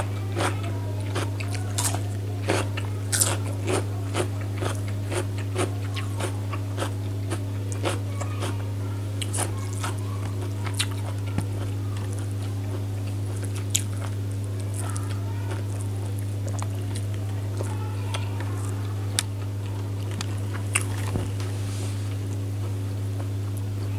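A person eating chicken curry and rice close to the microphone, with wet chewing and biting clicks. The clicks come thick and fast for about the first half, then only now and then. A steady low hum runs underneath.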